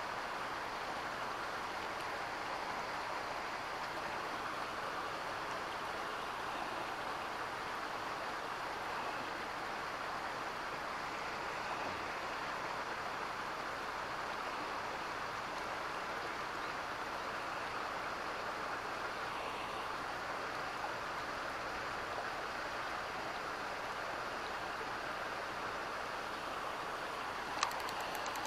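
Steady rush of flowing river water, with a single sharp click near the end.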